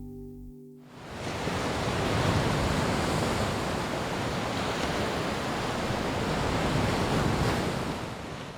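Sea surf washing in a steady rush after the last guitar notes die away in the first second; it fades out near the end.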